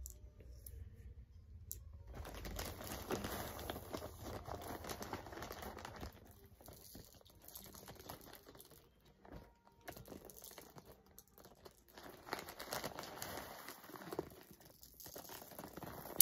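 Plastic bag crinkling and rustling in two bouts, with small clicks, as BBs are taken out and loaded by hand into an airsoft pistol magazine.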